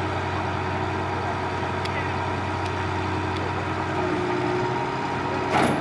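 Truck-mounted borewell drilling rig running steadily with a low engine hum, with one short, loud knock near the end.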